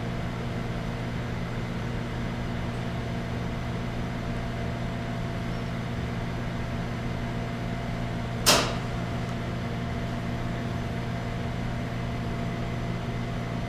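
Steady low background hum from room or equipment noise, with one sharp click about eight and a half seconds in.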